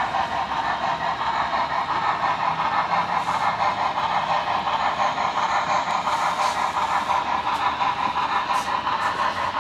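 Model train running along layout track: a steady running sound with a fast, even pulse.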